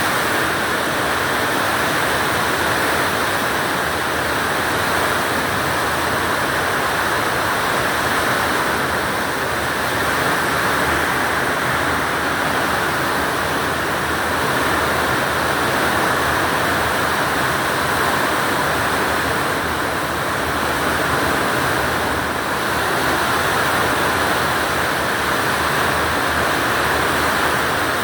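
Very heavy rain pouring down in a steady, loud downpour.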